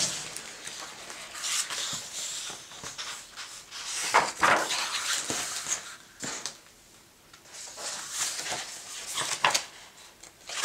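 Pages of a hardcover picture book being opened and turned by hand: a series of paper rustles and swishes, the loudest about four seconds in.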